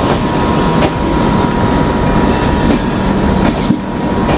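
Malwa Express passenger coaches running slowly on a curve into a station, heard from an open coach door: a steady rumble of wheels on rail with a thin, steady whine from the wheels on the curve.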